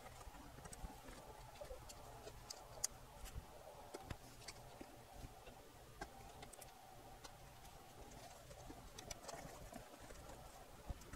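Near silence with faint scattered clicks and taps from cables and plastic parts being handled and pressed into a soundbar's housing. A faint wavering mid-pitched tone runs underneath.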